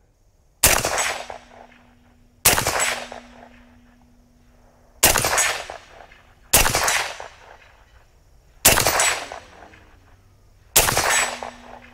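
Six shots from an 8.6 Blackout AR pistol with an 8-inch barrel, firing supersonic 210-grain Barnes TSX loads in slow semi-automatic fire. Each sharp report is followed by a short echoing tail, and the shots are spaced about one and a half to two and a half seconds apart.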